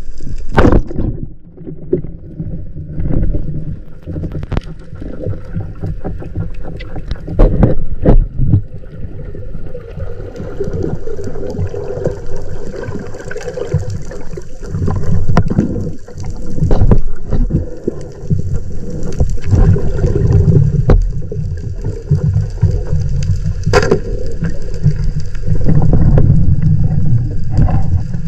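Underwater noise picked up by a speargun-mounted camera: low rumbling water movement and gurgling, with scattered sharp clicks and knocks throughout.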